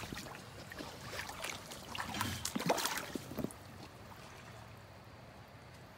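Creek water trickling. For about the first three and a half seconds, dry roots and debris rustle and crackle in a run of short clicks, and after that only the steady trickle remains.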